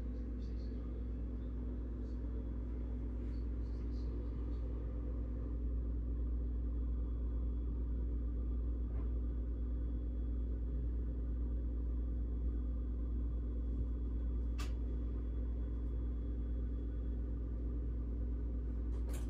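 Steady low rumble with a constant hum under it, broken by two sharp clicks in the second half.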